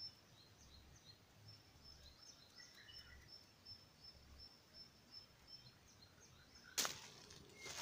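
Quiet outdoor ambience with a faint high chirp repeating about twice a second, then a sudden loud crunch near the end.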